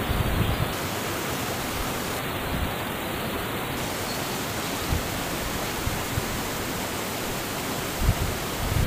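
Steady rush of churning water from the Bono tidal bore, a breaking wave front travelling up the Kampar River. Wind buffets the microphone at the start and again near the end.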